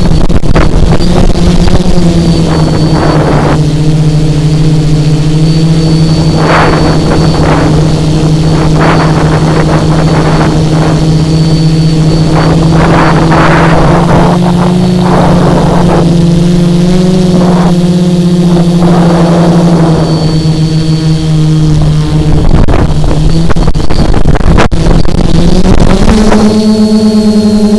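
Tricopter's three Emax XA2212 brushless motors and propellers humming steadily in flight, heard close up through the onboard camera, with short bursts of rushing noise. Near the end the pitch steps up sharply as the throttle is raised.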